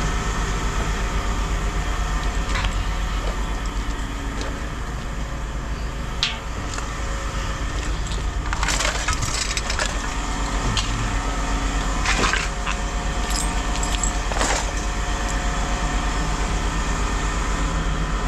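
A steady engine or machine hum runs throughout, with several short crackling, crunching bursts of scrap being broken or crushed, the loudest about nine, twelve and fourteen seconds in.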